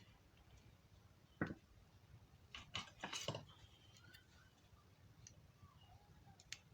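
Faint clicks and taps of small tools and fingers working on an opened feature phone as its speaker is taken out: one sharp click about a second and a half in, a short cluster near three seconds, and another near the end, against near silence.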